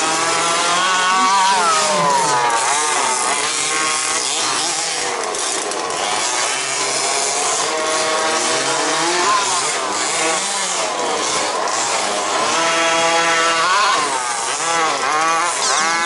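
Electric 2WD radio-controlled buggies racing, their motors whining high and gliding up and down in pitch again and again as they accelerate and back off around the track.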